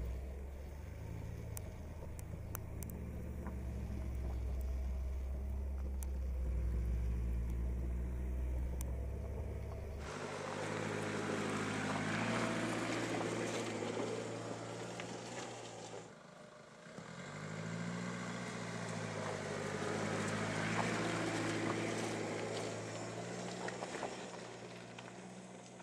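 Mercedes E 220 d All Terrain's four-cylinder diesel engine pulling the car slowly along a rough dirt track, its note rising and falling, with tyres crunching over dirt and stones. A deep rumble under it stops suddenly about ten seconds in, and the sound dips briefly a few seconds later before the engine picks up again.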